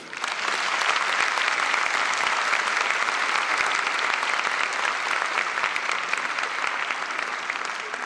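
Audience applauding: dense, sustained clapping that eases off slightly near the end.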